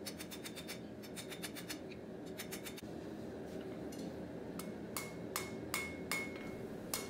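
Blacksmith's hand hammer striking a red-hot square steel bar on the anvil, upsetting the end of the bar. Quick clusters of light taps in the first few seconds, then from about four and a half seconds in, steady blows about two and a half a second, each ringing briefly.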